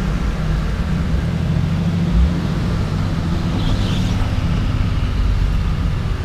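Vehicle engine running steadily at low speed, a low rumble picked up by a camera mounted outside on the hood, with a brief low thump about two seconds in.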